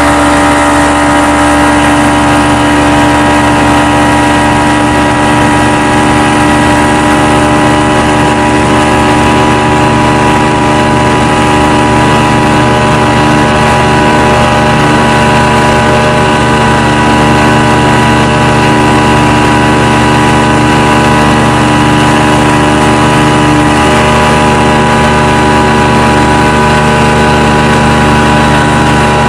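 Towing motorboat's engine running loud and steady at constant speed, with the rush of water and wind under it.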